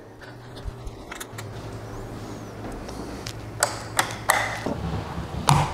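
Wall rocker light switches clicking as they are flicked, several clicks in the second half, over a steady low hum.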